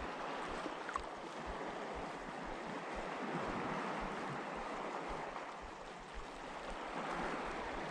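Small sea waves washing over a rocky shoreline, a steady wash, with wind buffeting the microphone in low thumps.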